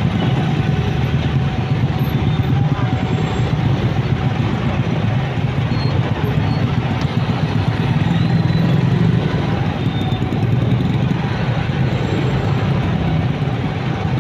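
Motorcycle and car engines running in dense, slow-moving city traffic, a steady loud drone with no single event standing out.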